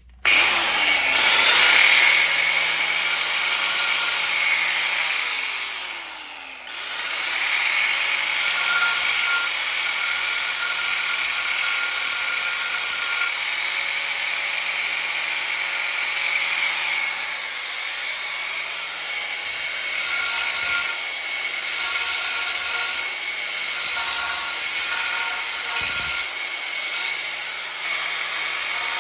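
Angle grinder cutting metal, starting abruptly with a steady high whine and grinding noise. It briefly spins down with falling pitch about six seconds in, then comes back up and keeps cutting.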